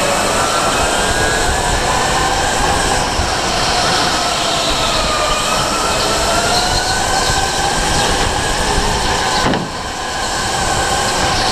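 Onboard an electric rental go-kart at racing speed: the motor's whine rises and falls in pitch with speed over steady wind and tyre noise, dipping briefly near the end.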